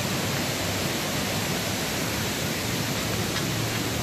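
Steady rushing of a flooded river running high and white over rocks.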